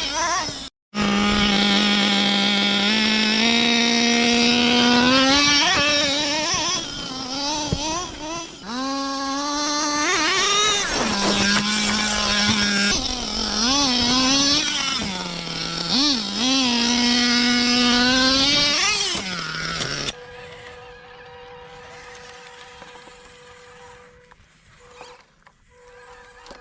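A radio-controlled car's engine revving up and down, with pitch holding steady then gliding as the throttle is worked. It drops out briefly just under a second in. At about twenty seconds it cuts to a much quieter passage with a steady hum.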